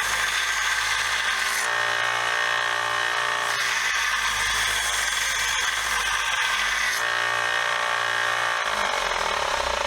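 Bench power tool (wire wheel or belt sander) running steadily while a rusty wrench is pressed against it by hand to clean it, the grinding sound changing several times as the wrench is shifted.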